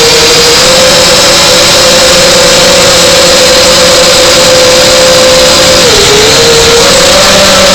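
Radio-controlled model airplane's motor, heard loud from a camera on board, running at a steady pitch. The pitch dips briefly about six seconds in as the throttle eases, then climbs back.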